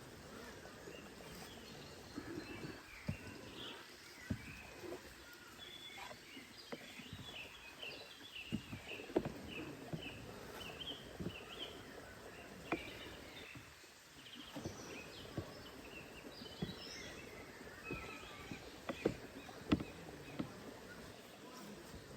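A bird calling in a quick run of short, high chirps for several seconds, with a few more calls later. Scattered sharp clicks and knocks sound throughout over a faint steady outdoor hiss.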